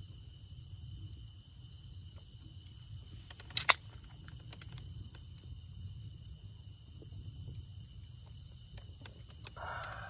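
Night insects, crickets among them, chirring steadily in high-pitched bands over a low steady rumble. Scattered sharp clicks, with one louder crack about three and a half seconds in.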